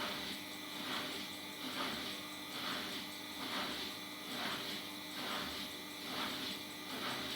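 Bosch Maxx 5 front-loading washing machine drum tumbling laundry in the wash cycle, a swish repeating about every 0.8 s over a faint steady hum.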